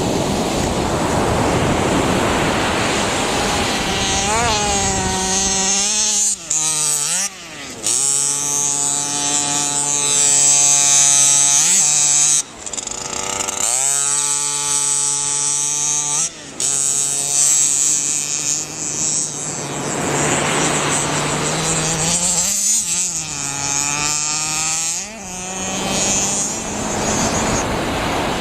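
Radio-controlled car's small motor buzzing, its pitch rising and falling as it speeds up and slows. Surf and wind noise is heard at the start and again past the middle.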